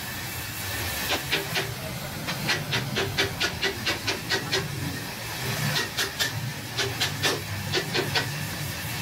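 Steady hiss of a gas welding torch flame held on a steel exhaust pipe seam, with runs of quick sharp taps, about five a second, coming and going over it.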